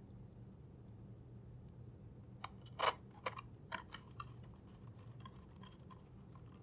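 Light clicks and knocks of a small screwdriver and hands on a keyboard's FR4 bottom plate as it is screwed into a 3D printed case. There is a short cluster of taps a little before the middle, the loudest of them a sharp knock, then a few fainter ticks, over a low steady hum.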